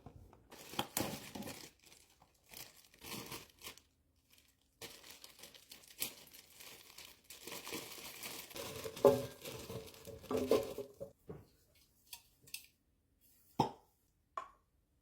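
Frozen food packaging being torn open and crinkled by hand, in irregular rustling tears, busiest and loudest in the middle, with a few sharp clicks near the end.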